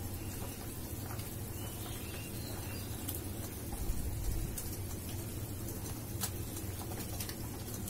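Thin fish curry boiling in a kadai over a gas stove, a steady low bubbling with a few faint clicks, as pieces of rohu fish are slipped into it one by one.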